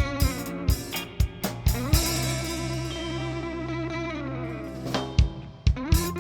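Instrumental rock band playing: effects-laden electric guitar with wavering sustained notes over a steady bass line and drum hits.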